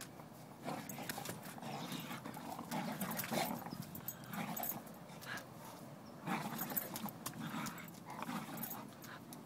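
A blue heeler and a German shepherd playing tug-of-war with a rope toy: low play growls in repeated short bursts, with claws clicking and scuffling on the tile floor.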